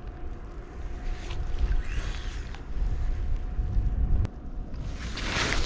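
Strong wind buffeting the microphone, a low gusting rumble that grows near the end, with a single sharp click a little past four seconds in.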